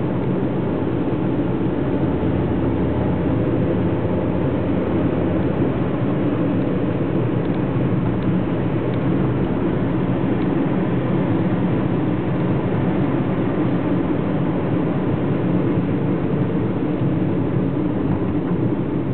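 Steady engine and tyre noise of a car at highway speed, heard from inside the cabin. A low hum drops away about five seconds in.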